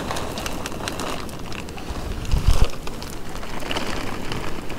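Dry cat food shaken out of a plastic bag and scattered, the kibble pattering down as a crackly run of small clicks. A low thump about two and a half seconds in.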